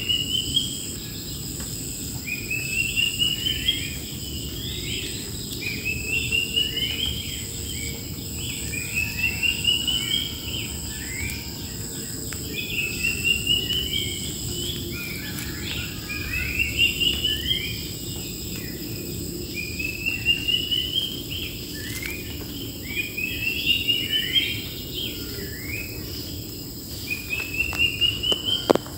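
A wild bird singing the same phrase over and over, about every three and a half seconds: a quick rising trill followed by a few falling notes. Behind it runs the steady high whine of insects, and there is a single sharp click near the end.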